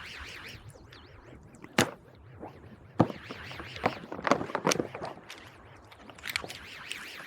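A series of sharp clicks and knocks, with a dense cluster of them about halfway through, over faint warbling squeaky tones.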